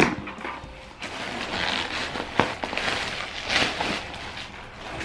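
Cardboard box flaps being pulled open and clear plastic packaging crinkling and rustling as it is lifted out, with a sharp tick about two and a half seconds in.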